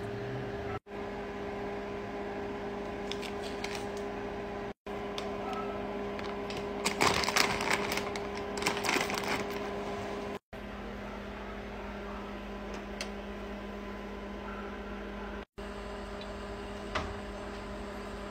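Steady electrical hum in a small room, broken by a few brief dropouts. For a couple of seconds in the middle, plastic food packaging crinkles and rustles as grocery bags are set down.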